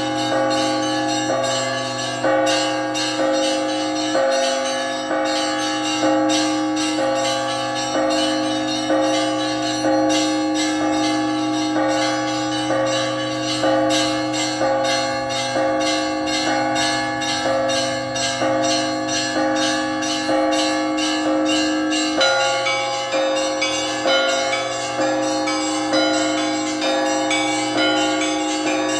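Russian Orthodox church bells rung together in a continuous peal: quick, steady strikes of the smaller bells, several a second, over the sustained ringing of the larger bells.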